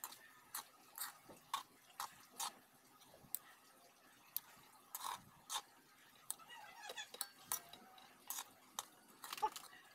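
Metal spoon stirring fried rice in a metal wok, tapping and scraping against the pan in irregular sharp clicks, about one or two a second, the loudest near the end.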